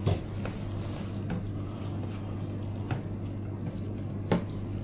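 Three short, sharp clicks over a steady low hum.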